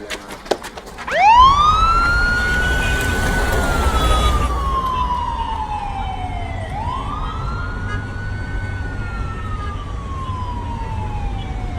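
Police vehicle siren starting about a second in with a quick rising wail, then slowly falling and rising again in long, slow cycles about five and a half seconds apart, over a low engine rumble. A few quick knocks come just before the siren starts.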